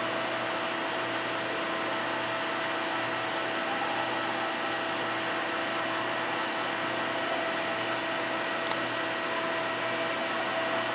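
Daewoo ACE-H100 horizontal machining center powered up and idling, its pumps and fans giving a steady hum with several constant tones.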